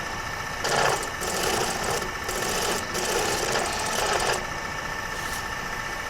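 Wood lathe running with a steady hum while a gouge cuts the spinning lignum vitae (guaiacum) blank, the cutting coming in several rasping passes over the first four seconds and once more briefly near the end.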